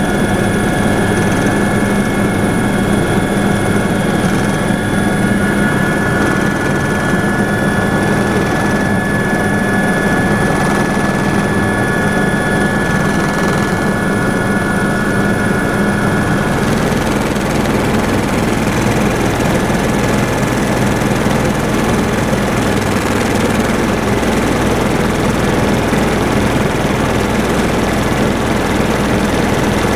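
Helicopter in steady cruise heard from inside the cabin: a loud constant drone from the rotor and engine with thin, steady high whines over it. About halfway through the whines drop away and a broader rushing noise takes over.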